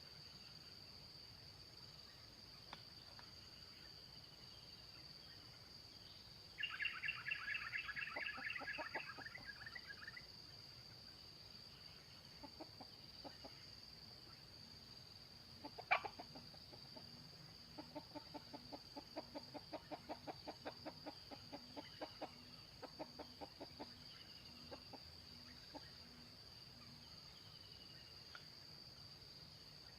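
Red junglefowl clucking: a quick run of high calls several seconds in, then a long series of low clucks at about three a second. A steady high insect drone runs underneath, and a single sharp click comes near the middle.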